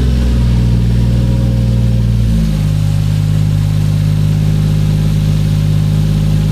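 Toyota 1JZ-GTE VVT-i straight-six engine idling just after a cold start. Its idle steps down to a lower, steady speed about two and a half seconds in. It is running fine on a newly fitted VVT-i oil control valve solenoid, which cured its lumpy idle.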